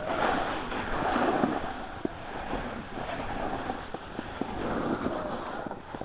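Wind buffeting the microphone during a fast downhill run, with the steady hiss and scrape of sliding over packed snow and a few short knocks.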